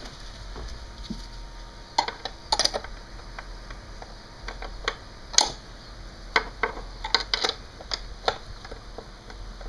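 Metal tools or parts clinking as they are handled: a dozen or so sharp, irregular clicks and clinks, the loudest about halfway through, over a low steady hum.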